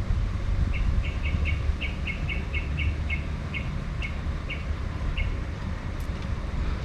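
A bird calls with a run of about fifteen short chirps, quick at first and then spacing out, over a steady low rumble.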